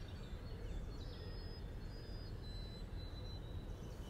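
Quiet woodland ambience: a steady low outdoor rumble, with a few faint, thin, high bird chirps in the middle.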